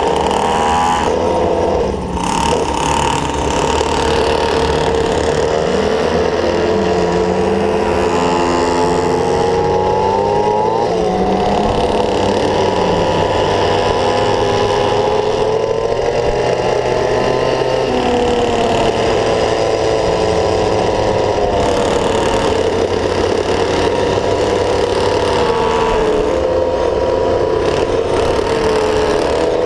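Small two-stroke engine of a gas stand-up scooter (Go-Ped) running while being ridden, its pitch wavering up and down with the throttle.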